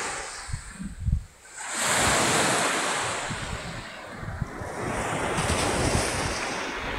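Small sea waves breaking and washing up a pebble beach: one surge swells about two seconds in and another around six seconds. Wind buffets the microphone.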